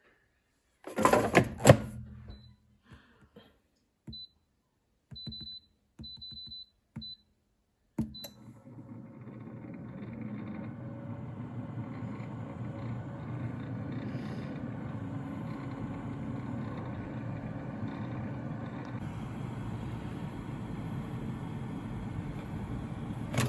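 Air fryer being loaded and switched on: a couple of clatters as the basket goes in, a run of short beeps as the control buttons are pressed, then about eight seconds in its fan starts and runs with a steady low whir.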